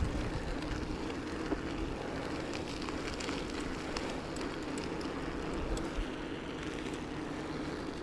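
Mountain bike tyres rolling on the road with a steady crackling hiss, over a low rumble of wind on the microphone, with scattered faint ticks.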